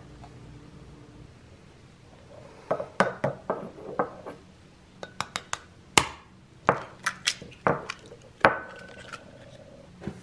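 A ceramic bowl knocked and clinked against a hard stone countertop: a quick series of sharp clicks and knocks, the last loud knock leaving the bowl ringing briefly.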